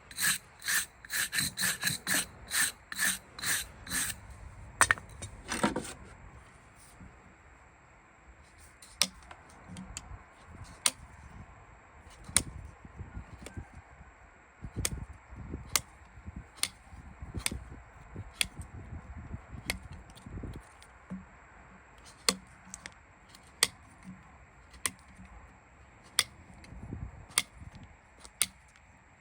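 Farrier's metal tools working on a horse's hoof. First comes a quick run of ringing metal taps, about three a second, then from about a third of the way in single sharp clicks come every second or so.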